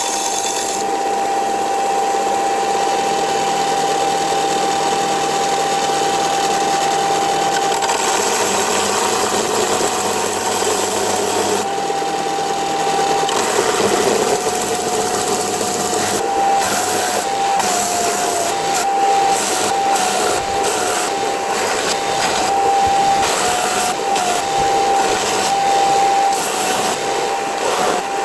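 Belt sander running with a steady whine while a cast bronze piece is ground flat against the belt; from about halfway in, the whine dips in pitch again and again as the work is pressed on.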